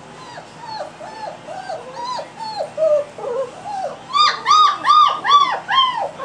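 Three-week-old German Shepherd puppy whining, a steady string of short cries that rise and fall in pitch, about three a second, getting louder about four seconds in.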